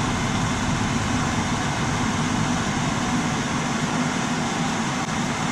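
Steady whir and hiss of a running fan with a faint low hum, even throughout.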